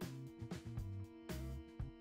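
Background music: held pitched notes over a low bass line, changing every half second or so.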